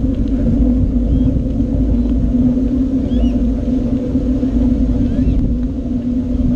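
Wind rushing over a small action camera's microphone and tyre rumble from a bicycle being ridden: a steady low rumble with a constant hum underneath.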